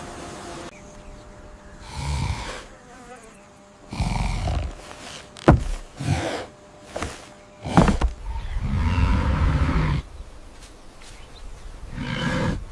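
Animal growls and grunts in short rough bursts, with two sharp snaps in the middle and a longer growl about two-thirds of the way through.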